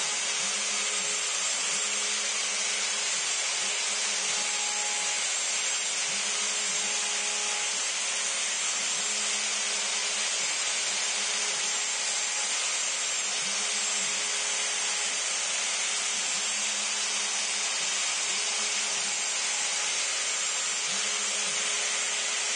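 Router on a CNC Mogul machine running at full speed, its bit cutting into cedar fence board at a feed of 100 inches per minute: a loud, steady whine and hiss that does not change.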